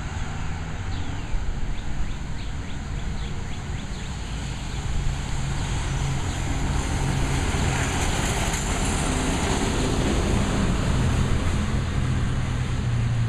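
Diesel engine of a garbage truck running steadily as it pulls away down the street, with a louder rushing spell in the middle. Birds chirp in the first few seconds.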